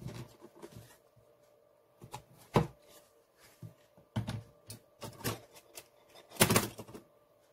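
Irregular clicks, scrapes and knocks of the plastic case of a Xiaomi 10000 mAh power bank being pried and pressed apart with a thin metal tool. A sharp crack comes about two and a half seconds in, and a louder, longer crackle near the end as the front panel is forced.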